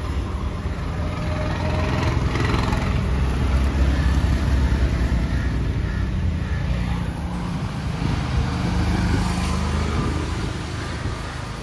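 Motor vehicle noise: a steady low rumble that swells a few seconds in and eases off near the end.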